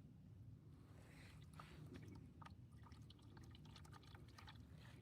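Faint trickle of dark used engine oil draining from the open sump into a drain pan, with small scattered drips, over a low steady hum.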